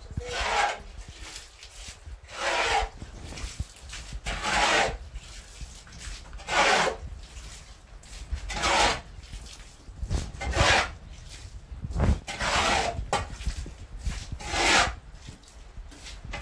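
Metal shovel blade scraping across a packed earthen floor, one scrape about every two seconds.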